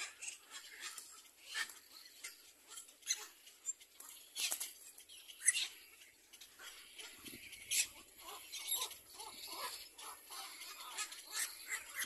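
Little black cormorant chicks begging in the nest with short, high, squeaky calls, several a second and unevenly spaced, the loudest about four and a half and five and a half seconds in.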